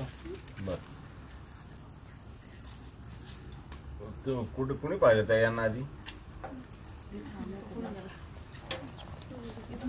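A cricket chirping in a steady, high, evenly pulsed trill. People talk over it, loudest for about a second and a half around the middle.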